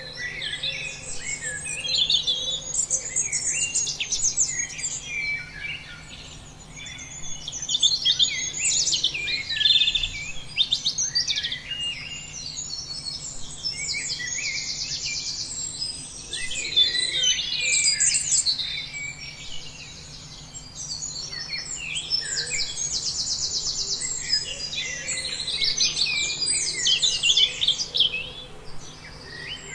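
A dense chorus of several songbirds chirping and singing at once, with short whistled phrases overlapping and, now and then, a fast rattling trill held for a second or two.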